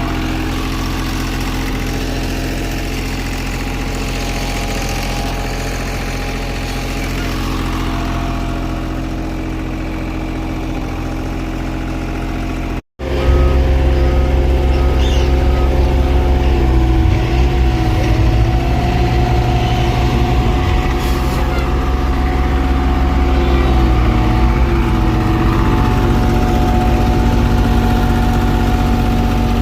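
Heavy paving machinery engines running steadily. After a cut they are louder, with the engine pitch rising and falling as the machines work. A short run of evenly spaced beeps comes just after the cut.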